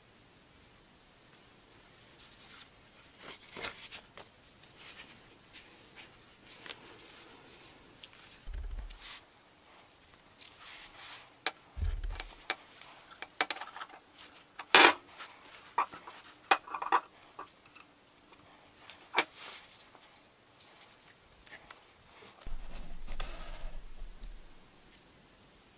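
Hand handling of a leather wrap on a cast-aluminium hammer handle: leather rubbing and rustling as it is pulled tight, with scattered clicks and knocks of the metal handle. A sharp click about fifteen seconds in is the loudest, and a few dull thumps come and go.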